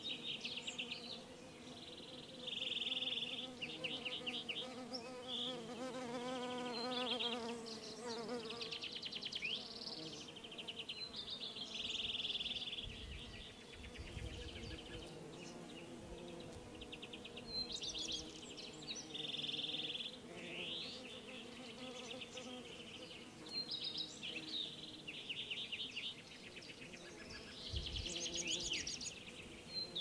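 Insects buzzing close by, a wavering hum that rises and falls in pitch, while birds sing a busy run of trills, buzzy notes and short rising whistles. Wind knocks on the microphone a couple of times.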